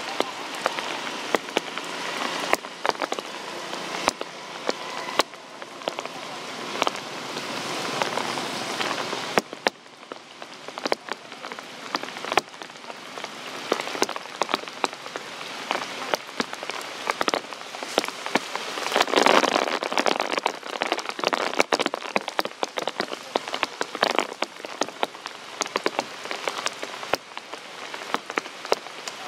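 Steady rain falling on ground and leaves, with many sharp drop impacts close by. The rain swells heavier for a moment about two-thirds of the way through.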